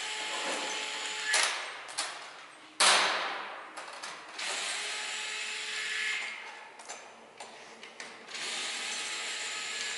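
Cordless drill-driver running in several short bursts of a second or two, driving the terminal screws of capacitor cans, with a sharp clack about three seconds in.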